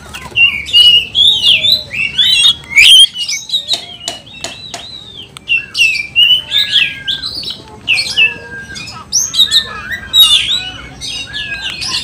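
Oriental magpie-robin (kacer) singing fast and loud in agitated, overexcited song: a dense, unbroken run of varied high whistles, chirps and harsh notes. A few sharp clicks come between about three and five seconds in.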